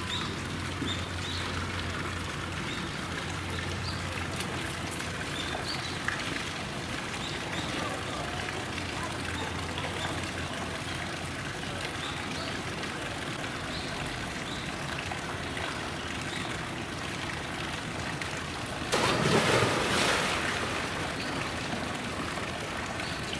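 Steady wash of running water in a polar bear's pool enclosure, then near the end a loud splash as the polar bear plunges into the pool, with water sloshing after it.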